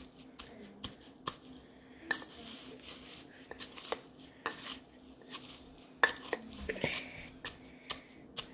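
Pestle pounding and grinding dried flower petals in a mortar: irregular knocks and scrapes, the loudest about six seconds in.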